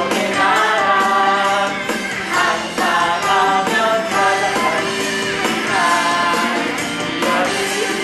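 A song: voices singing phrases of about two seconds each over instrumental accompaniment.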